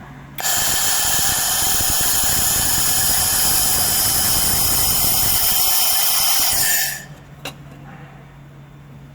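LM-2000 3 kW 4-in-1 handheld laser machine firing on metal: a loud, steady hiss that starts abruptly and cuts off after about six and a half seconds, over the machine's low steady hum.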